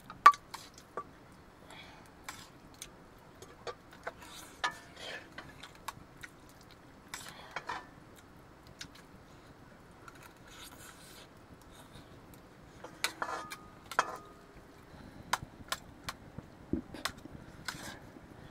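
Scattered clinks and scrapes of metal utensils on steel plates and a cooking pot, as rice is mixed on a plate and ladled out of the pot. One strike about thirteen seconds in leaves a short metallic ring.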